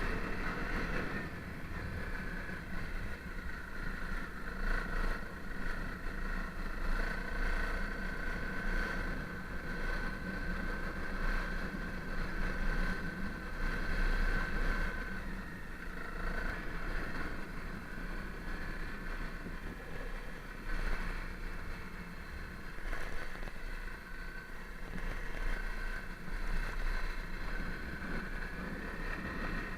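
Honda CRF250L's single-cylinder four-stroke engine running steadily while the bike is ridden off-road, its loudness rising and falling throughout.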